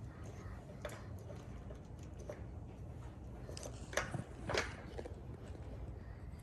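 Faint taps and clicks of puzzle pieces being handled and fitted into a puzzle board, the two loudest about four and four and a half seconds in, over a steady low room hum.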